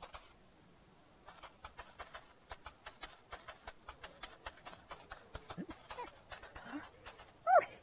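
Light, rapid clicking, about five clicks a second, as a costumed character pushes and turns his small wheeled toy trolley. Near the end comes a short, squeaky, rising-and-falling vocal from the character.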